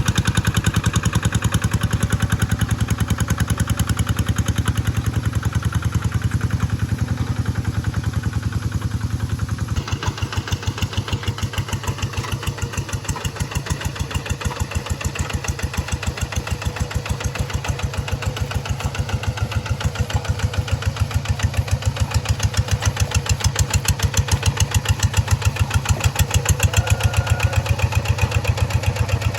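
The G1000 engine of a two-wheel hand tractor running steadily with an even, rapid beat during a test run. Its note shifts about ten seconds in and again near the end.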